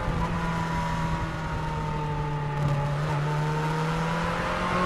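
BMW K1's four-cylinder engine running under way, heard from the saddle with wind and road noise. The engine note sags slightly, then climbs steadily over the last couple of seconds as the bike speeds up.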